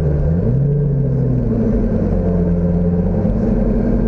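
Sports car engine heard from inside the cabin at low revs. Its pitch dips briefly, rises again about half a second in, then settles into a steady drone.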